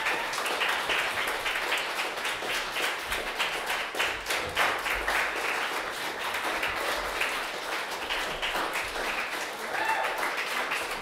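Audience applause: many hands clapping continuously, with a voice calling out briefly near the end.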